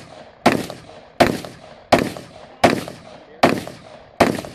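Rifle fired in quick, even semi-automatic shots, six in all, about three-quarters of a second apart, each with a short trailing echo.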